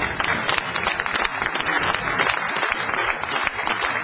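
Spectators applauding: dense clapping from many hands.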